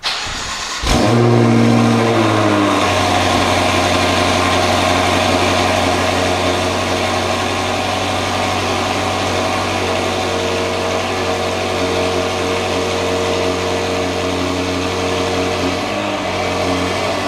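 BMW M5 F10's twin-turbo 4.4-litre V8 breathing through an Akrapovic exhaust, cold-starting: it catches about a second in with a loud flare of revs. It then settles into a steady fast cold idle, dropping lower at about two to three seconds and again near the end.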